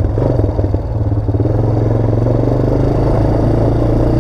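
Honda Recon 250 ATV's single-cylinder four-stroke engine running steadily, a little uneven in the first second before settling into an even beat.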